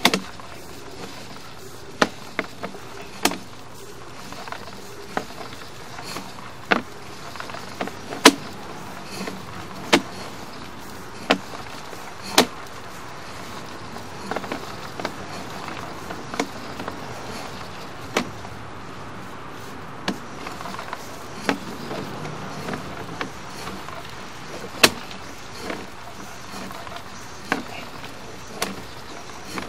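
Sewer inspection camera's push cable being drawn back out of the drain line: sharp clicks and knocks every second or two, unevenly spaced, over a steady low hum.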